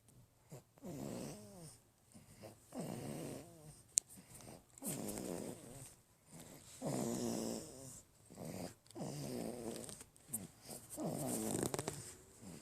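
A baby snoring in sleep: a regular series of about six snores, one every two seconds or so, each a short pitched, wheezy snore. A single sharp click about four seconds in.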